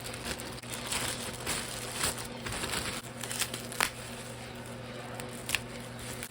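Packaging being handled and opened: irregular crinkling and rustling, with a few sharp clicks and a tearing sound.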